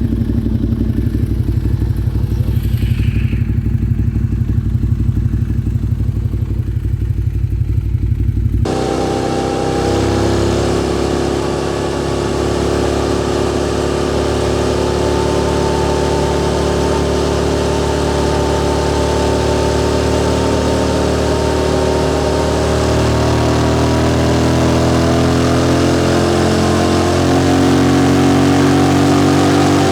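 QJ Motors SVT650X V-twin through an Arrow Racetech exhaust, first idling with an even, rapid exhaust beat. After a sudden change about nine seconds in, the bike is riding, the engine pulling steadily under load and its pitch rising slowly, with road and wind noise.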